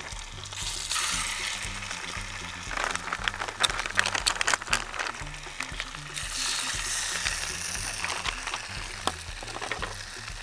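Chicken frying in hot fat in a small camping pot, sizzling with sharp crackles and pops that come thickest a few seconds in, over background music with a steady bass line.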